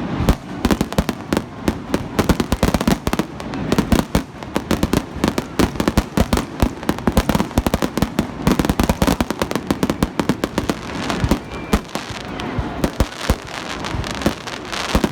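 Fireworks display: aerial shells bursting in rapid, irregular succession, several bangs a second, with crackling between them.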